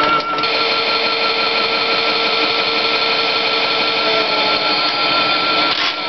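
Toy washing machine's small electric motor spinning the drum, a steady high whine over a grinding rattle that the owner blames on the crank mechanism at the back. The whine changes tone shortly after the start and again near the end.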